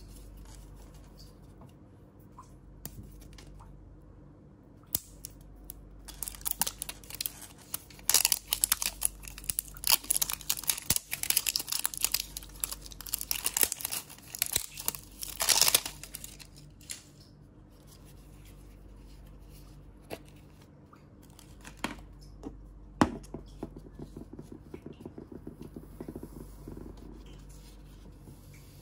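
Plastic wrapping being peeled and crinkled off a plastic toy capsule ball, with dense crackling and tearing for about ten seconds in the middle and scattered clicks and rustles of the plastic shell being handled around it.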